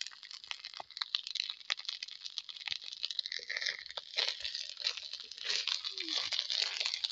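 Sliced onions, green chillies and garlic sizzling and crackling in hot oil in an iron kadai, a thick stream of fine pops and spits, with a metal spatula scraping and clicking against the pan now and then as the mixture is stirred.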